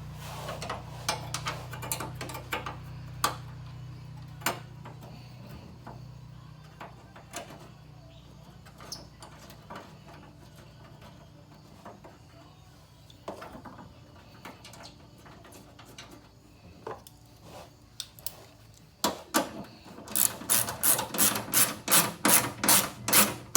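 Hand work on a car's radiator cooling fan brackets: scattered light clicks and knocks of metal parts being handled. Near the end comes a steady run of rasping strokes, about three a second, typical of a hand tool driving a fastener.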